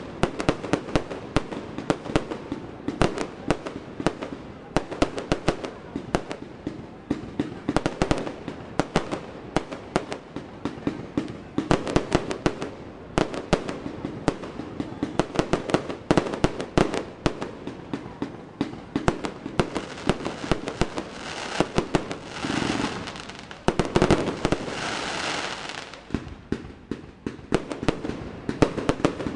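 Aerial fireworks display: a rapid, continuous barrage of shell bursts, bangs and crackling, several reports a second, with a few seconds of hissing about three quarters of the way through.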